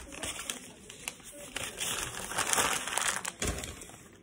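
A paper sandwich wrapper being crumpled and crushed by hand, crinkling most loudly in the middle, with a short dull thump about three and a half seconds in.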